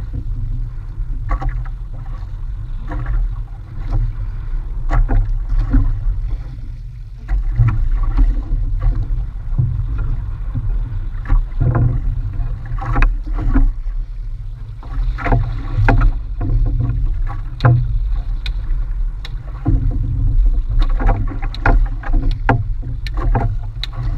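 Small wooden boat in choppy sea: a steady low rumble with irregular knocks and splashes of waves against the hull.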